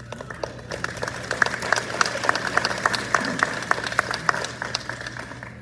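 Audience applauding, many hands clapping, starting at once and dying away near the end.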